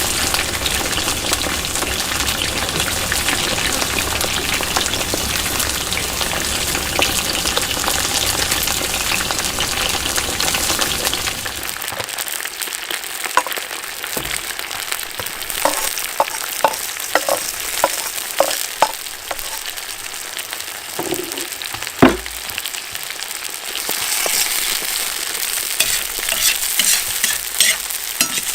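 Food sizzling as it fries in hot oil, with stirring. Partway through, the sizzle drops away to a quieter stretch of scattered sharp clicks and one loud knock, then the sizzling builds again near the end.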